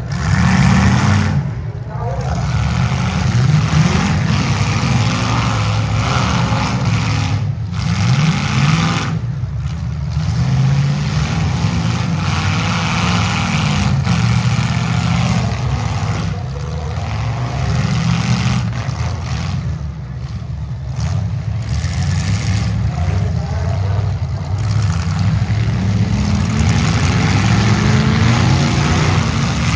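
Several compact demolition-derby cars' engines running and revving together, pitch rising and falling as the drivers throttle up to push and ram.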